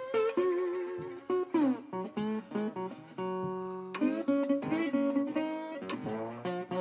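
Resonator guitar played bottleneck style with a brass slide and fingerpicked, a blues instrumental break between verses. Notes slide down about a second and a half in and slide up quickly about four seconds in.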